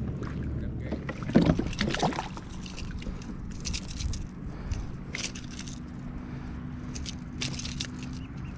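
Knocks and rattles of gear being handled on a fishing kayak, over a steady low hum and wind noise.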